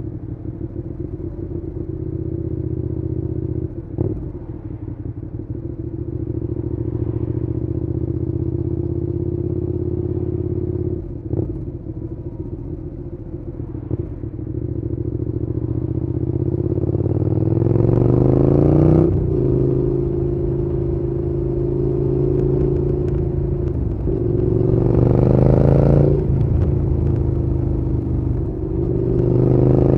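Suzuki Gladius 650's V-twin engine running at a steady engine speed, then accelerating hard three times in the second half, its pitch rising and dropping back after each pull. There are a few short knocks in the first half.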